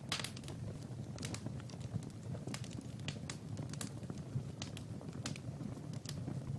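Wood fire crackling, with sharp pops at irregular intervals over a steady low rumble of the flames.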